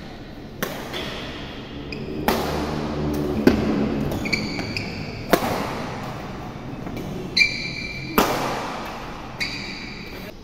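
Badminton rally: about five sharp racket strikes on the shuttlecock, one to three seconds apart, each echoing briefly in the hall, with short high squeaks of court shoes between them.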